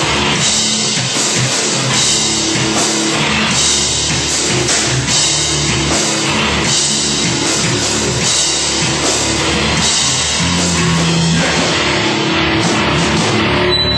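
Band playing loud rock music: a drum kit with regular cymbal and snare hits over guitar.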